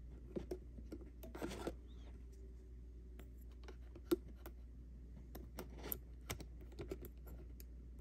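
Small clicks and taps of flush cutters and a soldering iron tip against a tachometer circuit board and a resistor lead being desoldered, with one sharper click about four seconds in and a brief scratchy noise earlier. A steady low hum runs underneath.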